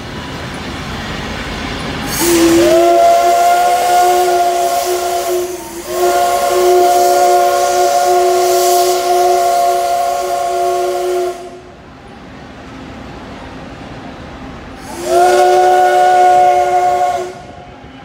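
Steam whistle of Taiwan Railway steam locomotive CT273 sounding a loud multi-note chord that slides up into pitch at each start: a long blast broken briefly once, then a shorter blast near the end, with a hiss of steam. Before it, the rising rumble of the train drawing near.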